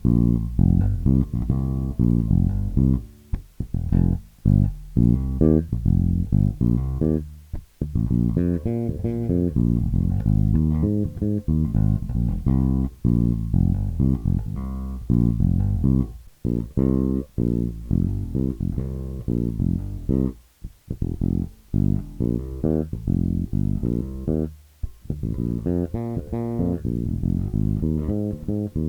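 Modified Squier Precision electric bass, fitted with DiMarzio pickups and an active preamp, played solo: a fast run of plucked notes with a few short breaks.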